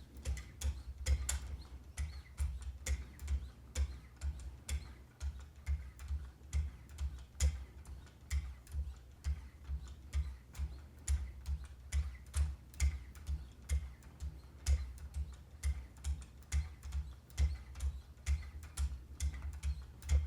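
Wicked Edge guided sharpener's 50,000-grit hones stroked along a Benchmade Bugout's CPM-M4 blade edge: a short click with a low tap at each stroke, about two a second, steady throughout. This is the final, finest polishing pass for a mirror edge.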